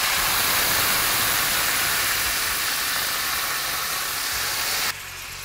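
White wine poured into a hot stainless steel sauté pan of browning butter, hissing and sizzling steadily as it flashes to steam. The hiss cuts off abruptly near the end.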